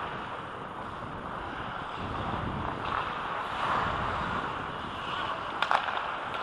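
Rushing air on a helmet-mounted camera microphone and skate blades scraping the ice while the wearer skates during an ice hockey game. Two sharp clacks come close together near the end.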